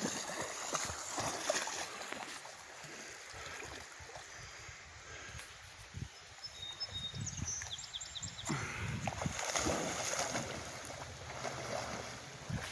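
Rottweiler splashing through river water as it wades and then swims, the water sloshing around it. The splashing is louder at the start and again over the last few seconds.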